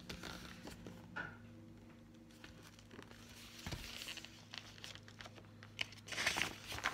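Pages of a picture book being turned and handled: paper rustling in a few short bursts, the loudest near the end.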